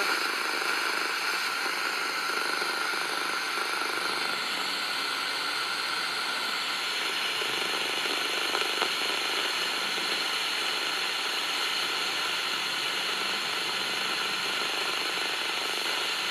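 FM static from the small speaker of a QFX R-9 portable AM/FM/shortwave radio: a steady hiss from the receiver tuned between stations.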